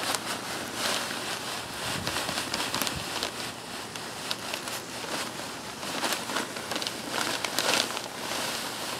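Perlite being poured from a bag into a plastic bucket: a steady hiss of light granules falling, with many small ticks, a little louder near the end.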